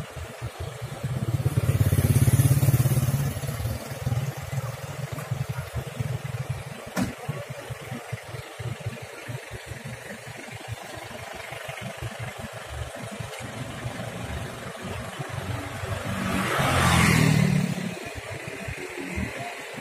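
Diesel Daihatsu Taft 4x4 engines running, swelling louder twice: about two seconds in and again near the end.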